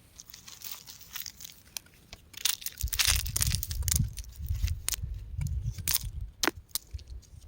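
Rock crumbling and crunching: scattered sharp clicks and crackles of breaking, shifting stone, with a low rumble joining from about three seconds in.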